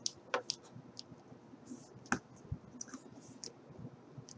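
Small plastic clicks and taps as a plastic action figure is handled and its limbs worked, coming irregularly, the loudest about two seconds in, followed shortly by a soft low knock.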